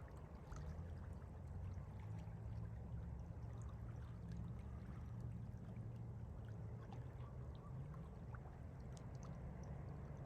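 Small lake waves lapping gently on the shoreline, faint and steady, with scattered light splashes over a low rumble.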